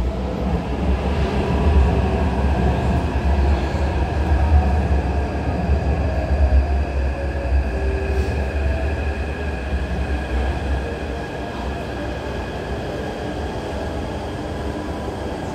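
Taipei Metro train pulling out past the platform screen doors: a low rumble of wheels on rail with a steady motor whine, fading away after about eleven seconds.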